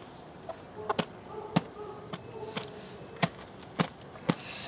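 A series of sharp, irregular taps and knocks, about nine, as an agitated chicken scrabbles and pecks in its coop. A faint, soft low clucking is heard near the middle.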